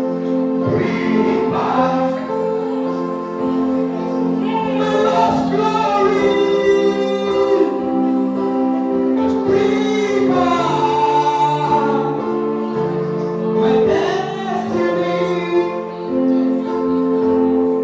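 Gospel music: a choir singing over held keyboard chords.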